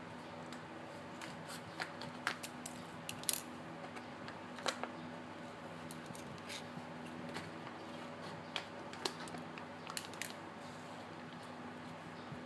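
Scattered sharp clicks and small taps of scissors being handled on a hard floor, over a steady low hum.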